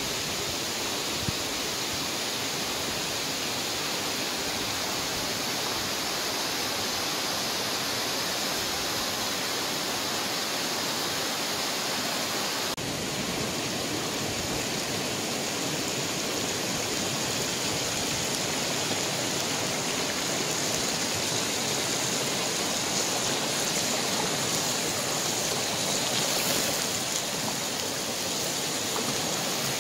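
Steady rushing of flowing water, like a stream running over rocks, continuing without a break; its tone shifts slightly about 13 seconds in.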